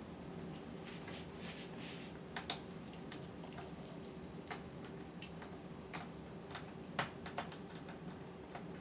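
Small Phillips screwdriver working a tiny screw out of a laptop screen panel: faint, irregular light clicks and ticks of metal on metal and plastic.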